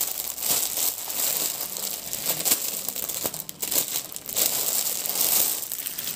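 Thin clear plastic packaging bag crinkling in irregular bursts as a folded garment is pulled out of it.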